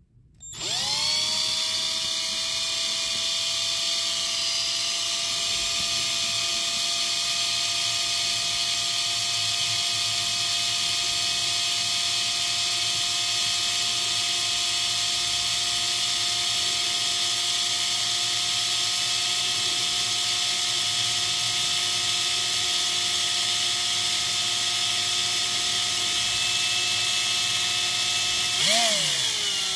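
Small electric drill spinning up to speed and running steadily while drilling out the rivet post of a diecast model car's base. Its pitch dips briefly and recovers near the end as the bit takes load.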